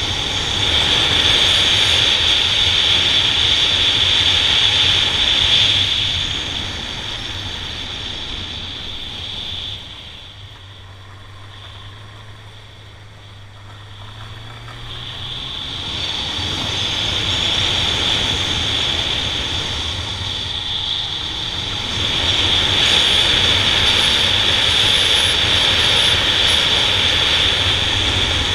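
Honda Nighthawk 750 motorcycle under way: wind rushing past and the inline-four engine running beneath it. The rush eases for several seconds past the middle, with the engine note rising as it builds again, and returns to full strength near the end.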